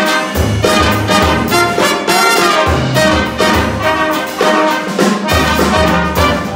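Brass ensemble of two trombones and three trumpets playing a tune together: trumpets carry the upper lines over low trombone notes that come in short, rhythmic punches.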